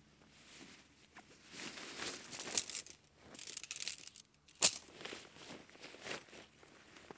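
Rustling and crinkling of a groundsheet and backpack fabric as a pack is set down and handled on it, in several short bursts, with one sharp click partway through.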